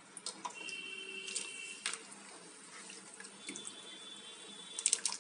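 Water in a steel pot heating on the stove with sliced potatoes in it: a faint hiss with scattered small ticks and pops as bubbles start to form.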